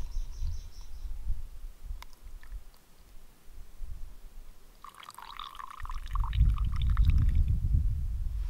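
Coffee poured from a moka pot into a cup: a short liquid pour about five seconds in, lasting a second or so, over a low rumble that comes and goes.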